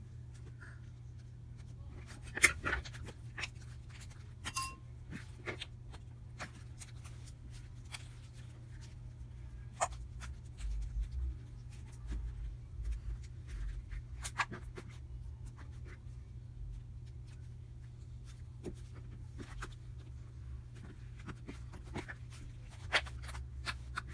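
Hands kneading, pressing and stretching thick slime: scattered sticky clicks and small air-bubble pops, with the sharpest pops about two and a half seconds in and again near the end, over a steady low hum.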